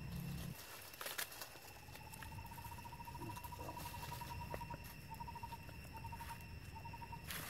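Faint outdoor ambience under a steady high hum. About two seconds in, a long rapid trill of evenly spaced pulses at one pitch begins, typical of a calling bird or insect, and breaks into short bursts in the last couple of seconds. A few sharp rustles or clicks come from movement in dry leaves.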